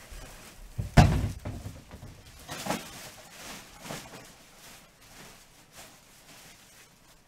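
A single heavy thunk about a second in, followed by a few lighter knocks and handling noises.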